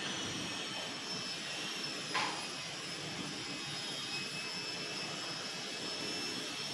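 Scissors cutting through blouse fabric, under a steady hiss with a faint high whine; one brief louder snip or scrape about two seconds in.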